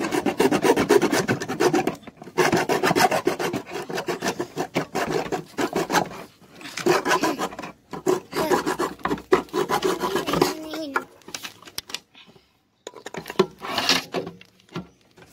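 Plastic drum wall being sawn through by hand: rapid back-and-forth rasping strokes in runs with short pauses. The sawing stops about ten seconds in, followed by a few short scrapes.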